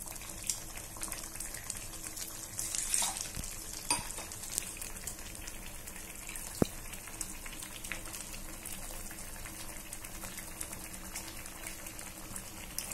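Thick curry gravy simmering and crackling in a pan as a wooden spatula stirs freshly added ground coconut paste into it, with a few light knocks of the spatula against the pan.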